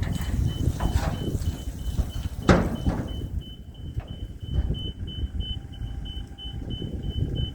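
Low, uneven rumble of a running vehicle with a regular train of short high-pitched beeps, about three a second. A single sharp knock, the loudest sound, comes about two and a half seconds in.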